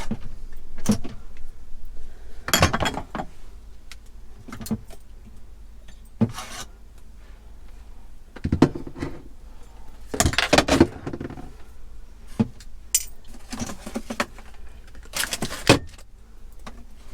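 Glass jars and food containers clinking and knocking as they are taken out and moved about in a fridge: a dozen or so separate knocks at irregular intervals.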